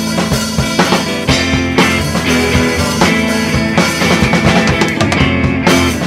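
Rock music: a full drum kit with bass drum and rimshots keeping a steady beat under sustained guitar.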